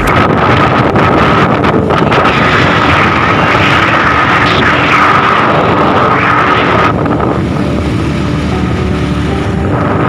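Steady engine and road noise from inside a vehicle driving a winding mountain road, with wind on the microphone. It turns a little quieter and duller about seven seconds in.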